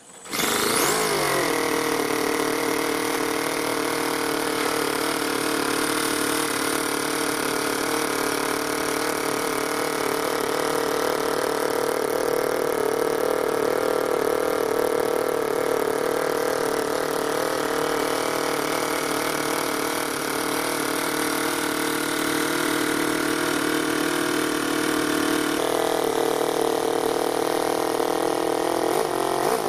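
Toyan FS-L200 two-cylinder four-stroke nitro model engine running steadily through twin stack exhausts, its pitch falling briefly about a second in.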